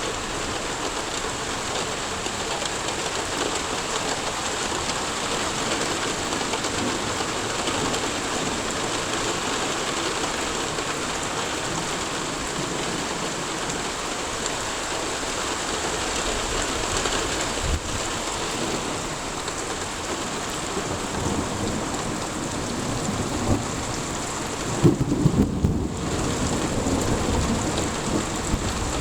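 Thunderstorm: heavy rain falling steadily, with thunder rumbling low a little past halfway and a louder low rumble near the end.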